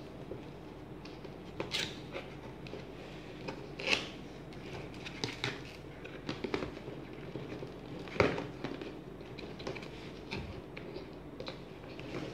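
A cardboard retail box being handled and opened by hand: scattered rustling, scraping and crackling of packaging, with a few sharper knocks about 2, 4 and 8 seconds in.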